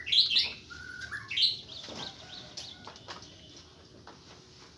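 Small birds chirping: a sharp, high call right at the start and another about a second and a half in. Faint clicking of goats eating mash feed from a trough runs underneath.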